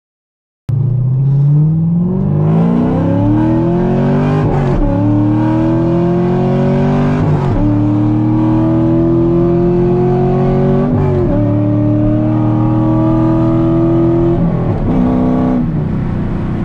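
C5 Corvette 5.7-litre V8 on long-tube headers, a catless X-pipe and an SLP Loudmouth straight-pipe axle-back, running loud under hard acceleration. The engine sound cuts in suddenly under a second in, and the revs climb and drop four times as the manual gearbox is shifted up through the gears.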